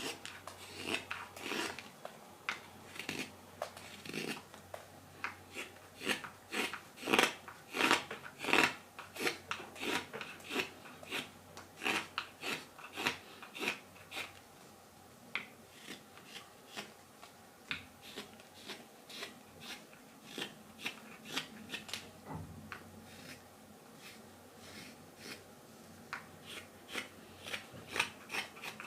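Carving knife slicing green wild cherry wood while cleaning up the back of a spoon bowl: a run of short shaving cuts, about one or two a second, quieter in the second half.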